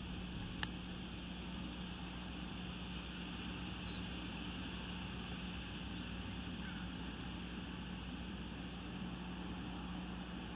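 Steady hiss and low rumble of an outdoor nest-camera microphone with a constant low hum, and one short sharp click about half a second in.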